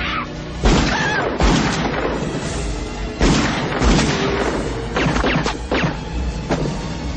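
Gunfire: about seven loud shots spread over several seconds, over a film score.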